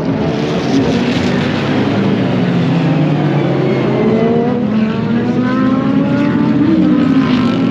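Several race car engines running together as the field passes under a safety car. Their overlapping notes slide down and then climb again.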